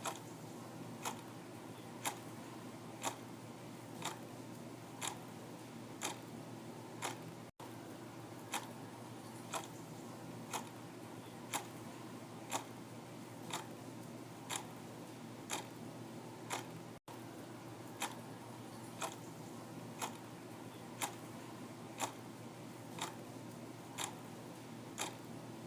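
Clock ticking steadily, about one tick a second, over a faint constant hum. The sound drops out for an instant twice.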